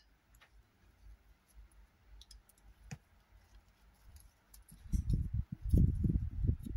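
Faint clicks and taps as paper roses and wooden embellishments are handled on a wooden box lid, then nearly two seconds of low, dull thuds and rubbing from a hand working against the tabletop near the end.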